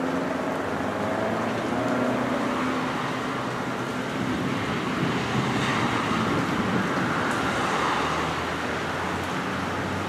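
Road traffic going by on a nearby street: a steady hiss of passing cars' tyres that swells to a peak from about five to eight seconds in, with a low engine drone through the first couple of seconds.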